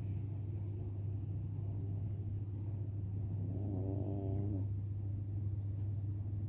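Dog snoring: a steady low rumble, with one short, higher-pitched snore a little past the middle.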